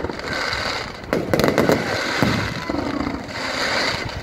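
Aerial fireworks shells bursting in the sky, repeated bangs with crackling, and a quick run of sharp bangs about a second in.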